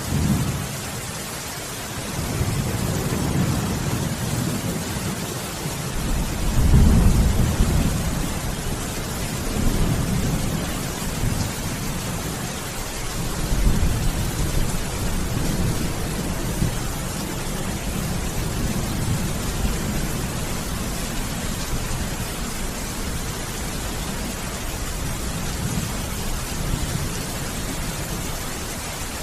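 Steady heavy rain with rolling thunder: deep rumbles swell and fade several times, the loudest about seven seconds in and another near fourteen seconds, over a constant hiss of rain.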